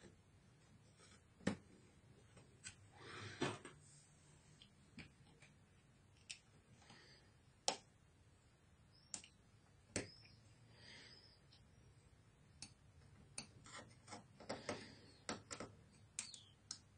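Scattered small clicks and taps of metal tweezers and fingers on the plastic base of an opened HP Mini 110-3100er netbook as thin wires are routed and parts pressed into place, with a few soft rubbing sounds between. The clicks come at irregular intervals, with a run of quick clicks near the end.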